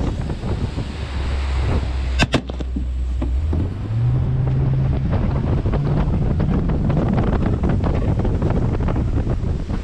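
Boat engine running under heavy wind noise on the microphone, the engine's hum rising in pitch as it speeds up about three and a half to four seconds in. Two sharp clicks a little over two seconds in.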